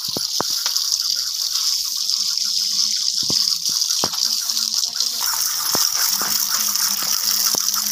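Water from a tap gushing steadily into a plastic colander of cut potatoes as they are rinsed, with occasional sharp knocks.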